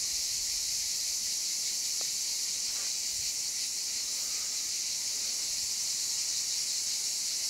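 Cicadas singing in chorus: a steady, high-pitched buzzing hiss that never breaks or changes level.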